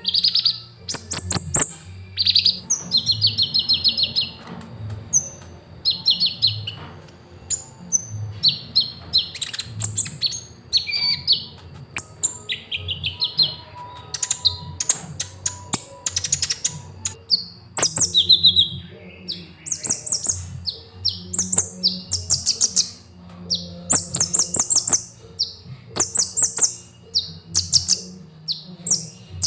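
Sunbird of the kind kept in Indonesia as a 'kolibri ninja' (purple-throated sunbird) singing without pause after its moult. It gives quick, high-pitched trilled chirps, a phrase about every second, jumping between a higher and a lower pitch.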